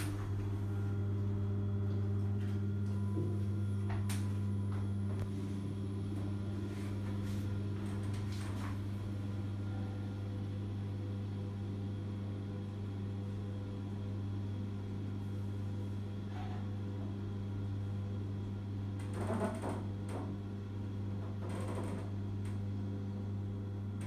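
Kone MonoSpace machine-room-less traction lift car travelling between floors: a steady low hum inside the car, with a few light clicks and a short clatter near the end as it arrives.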